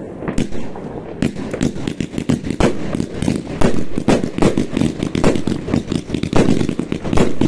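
Fireworks going off in quick succession: a dense run of overlapping bangs and crackles that grows busier about a second in.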